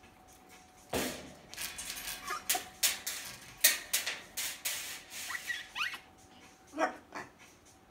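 Rubygold macaw making soft squeaks and chirps mixed with a quick run of clicks, ending in two short falling calls.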